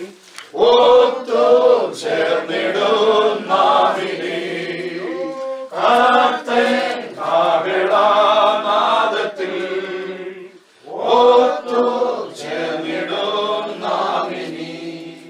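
A small congregation of mourners singing a Malayalam funeral hymn together in unison, without instruments. The verses come in phrases with brief pauses for breath.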